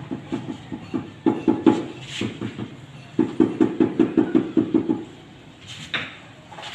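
Rubber mallet tapping a large floor tile in quick runs of blows, about six a second, bedding the tile down level under a spirit level. The tapping stops about five seconds in.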